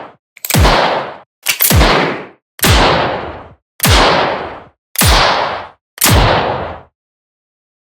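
Revolver gunshots, six in a row about a second apart, each a sharp crack with a deep thump and a short decaying echo; the last one dies away about a second before the end.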